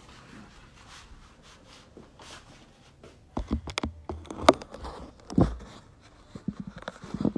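A large paper stencil sheet being handled on a worktable: faint rustling, then a run of sharp clicks and knocks about halfway through and a dull thump soon after, with more clicks near the end.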